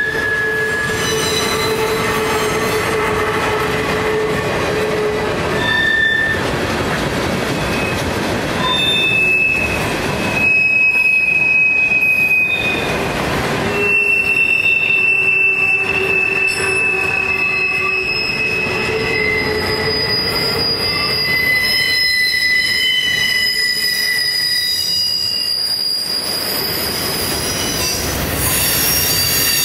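Railroad cars rolling past with their steel wheels squealing against the rails: a string of high, steady squeals that change pitch every few seconds, over the constant noise of the passing train.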